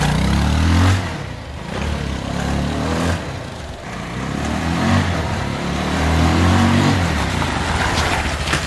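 Bajaj Pulsar 220 motorcycle's single-cylinder engine running as the bike is ridden, its revs climbing and dropping several times as the rider works the throttle.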